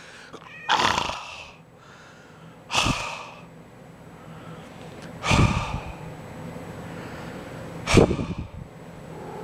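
A person's heavy, breathy exhalations or gasps, four of them spaced about two and a half seconds apart.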